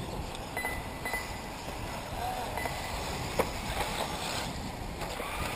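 Wind buffeting the microphone, with faint distant voices and a single sharp knock about three and a half seconds in.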